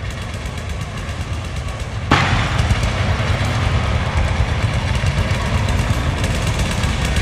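Thunder sound effect for a lightning logo: a low rumble, then a sharp crack about two seconds in that gives way to a louder rolling rumble with crackling.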